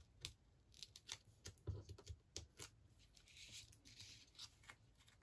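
Faint paper handling: a small die-cut cardstock piece with foam adhesive dots is moved and pressed on a craft mat, giving scattered soft clicks and taps, with a brief papery rustle about three seconds in.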